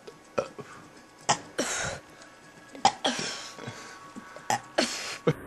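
A young boy burping: three short, breathy burps in a row, with sharp clicks between them.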